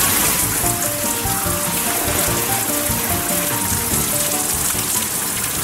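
Steady dense hiss of water drops falling onto a pool's surface, starting suddenly, with soft background music going on underneath.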